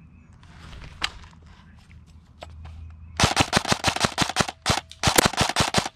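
Airsoft electric gun (AEG) firing two rapid strings of shots, the first starting about three seconds in, with a brief break between them; faint rustling and clicks before.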